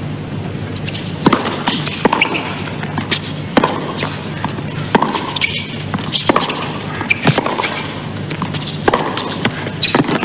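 Tennis rally on a hard court: sharp racket strikes on the ball roughly every second and a half, with ball bounces between them.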